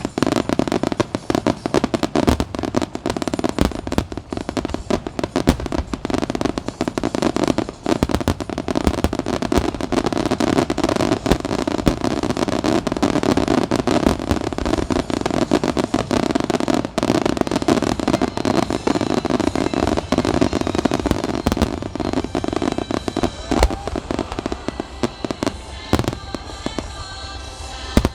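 Large fireworks display: a dense, continuous barrage of shells bursting and crackling, thinning a little near the end, with music playing underneath.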